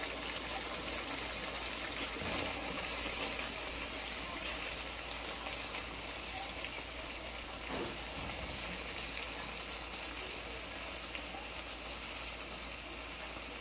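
Chopped squash sizzling steadily in hot oil and masala in a frying pan, easing a little toward the end.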